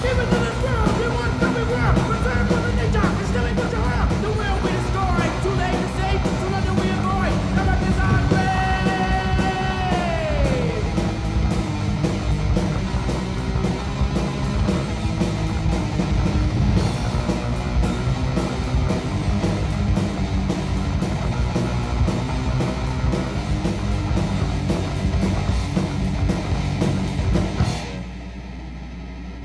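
Thrash metal band recording from a 1988 demo tape: distorted guitars, bass and drums. About eight seconds in, a high note is held and then slides down in pitch. Near the end the band drops to a quieter, bass-heavy moment.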